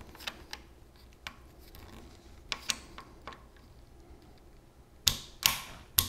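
Ryzen torque wrench turning a Threadripper socket's retention screw: scattered light clicks, then two louder sharp snaps about five seconds in, the wrench popping as it reaches full torque.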